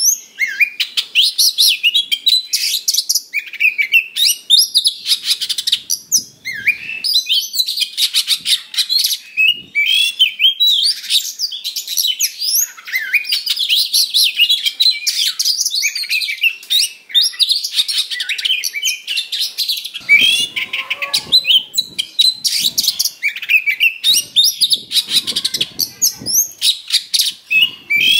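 Oriental magpie-robin singing loudly and without pause in a fighting-mood song: rapid, varied whistles, trills and harsh chattering phrases.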